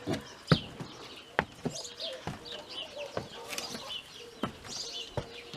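Chickens clucking faintly, with a series of about nine irregular knocks, footsteps climbing the steps of a lookout tower.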